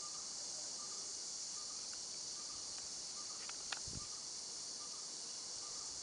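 Insects droning steadily in a high, even hiss, with faint repeated chirps under it. A single sharp click comes a little under four seconds in, followed at once by a dull low knock.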